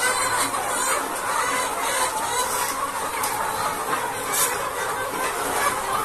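A large flock of chickens clucking and calling all at once: a dense, steady din of many overlapping calls.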